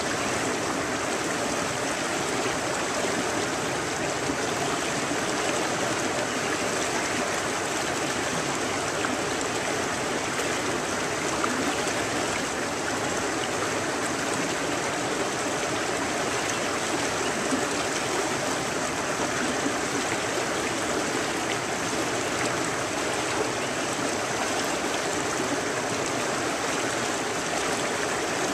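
Steady rushing of a fast-flowing river, an even wash of water noise with no breaks.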